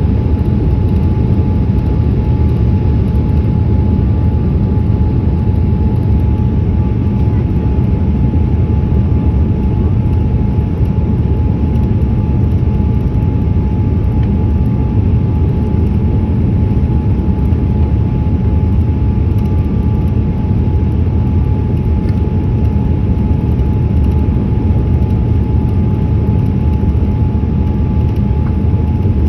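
A Boeing 787-8 airliner's steady engine and airflow rumble, with a faint steady whine above it.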